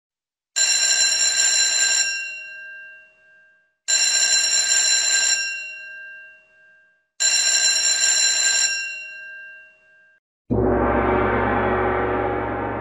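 A bell-like chime rings three times, about three and a half seconds apart, each stroke ringing for a second and a half and then dying away, like the three bells that signal a play is about to begin. About ten and a half seconds in, sustained music with a deep bass starts.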